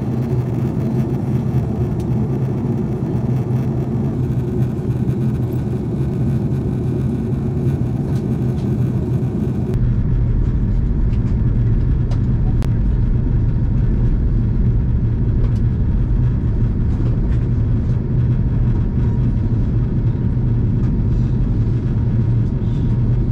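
Steady cabin noise of an Airbus A330-300 in flight, heard from a window seat: a low hum with rushing air over it. About ten seconds in the sound turns abruptly deeper and duller, the high hiss dropping away.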